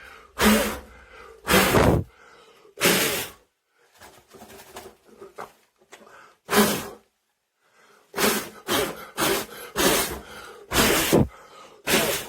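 A person's short, forceful breaths: about a dozen sharp puffs of air at irregular intervals, several close together in the second half.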